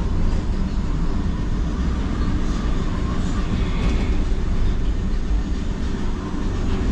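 Düsseldorf Airport SkyTrain, a suspended monorail, running with a steady low rumble.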